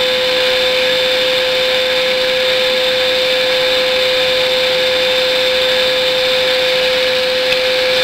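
A vacuum cleaner running steadily, its suction drawing air through a Lego vacuum engine to power it: a loud, even rush of air with a steady whine.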